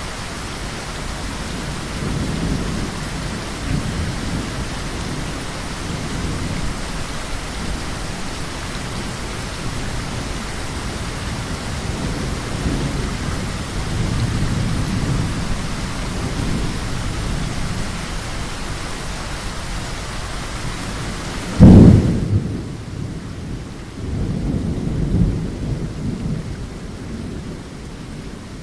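Heavy rain falling steadily while thunder rumbles low several times. About twenty-two seconds in comes a sudden loud thunderclap, the loudest moment. After it the rain hiss is suddenly much fainter, and thunder rumbles again.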